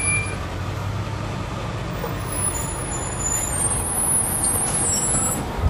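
Detroit Diesel Series 60 diesel engine of an MCI D4000 coach running at a steady low hum, heard from inside the bus, with faint high-pitched hissing around the middle.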